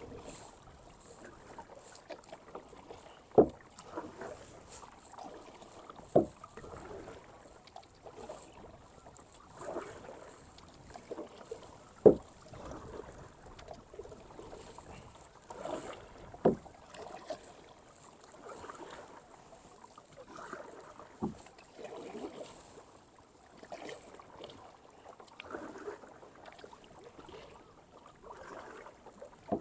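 Kayak paddle strokes swishing through the water every two to three seconds. About five sharp knocks fall among them, the loudest about twelve seconds in.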